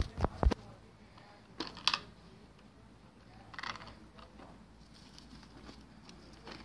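Plastic toy garbage trucks handled by hand: a few sharp clicks and knocks in the first half second, another small cluster near two seconds, and a brief rustle a little before four seconds.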